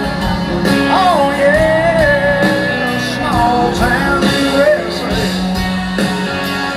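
Live country band playing through a concert PA, with an electric guitar solo of sliding, bent notes over the bass and drums.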